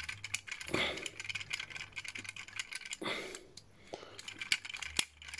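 Needle-nose pliers gripping and working a tight pin out of a plastic toy figure: a run of small clicks and ticks of metal on plastic, with one sharper click near the end.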